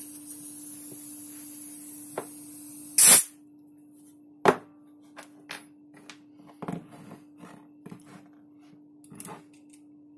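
Gas hissing out of a KJ Works M4 gas-blowback airsoft magazine as it is vented, ending in a loud short burst about three seconds in. Then light clicks and knocks as the magazine and tools are handled on the workbench.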